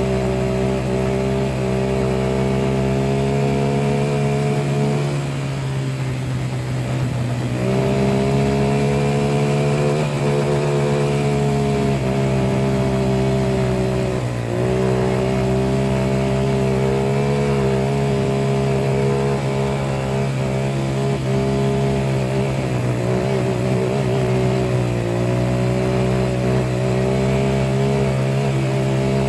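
An engine running steadily, with a few brief dips in pitch and level that come and go.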